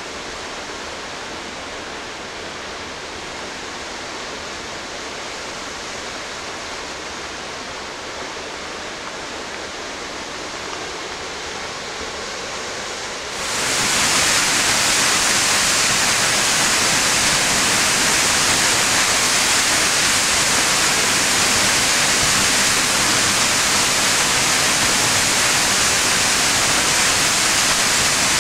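South Falls, a 177-foot waterfall, rushing in a steady hiss of falling water. About halfway through the sound jumps suddenly louder and brighter, then holds steady.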